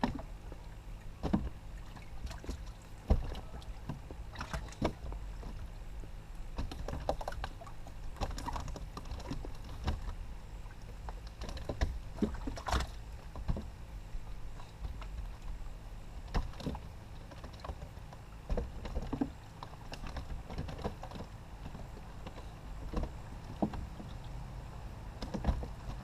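Small fishing boat on the water: a steady low rumble with irregular knocks and clunks scattered throughout.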